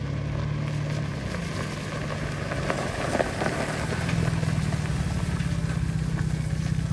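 A vehicle engine running steadily with a low hum, with some louder rattling noise around the middle.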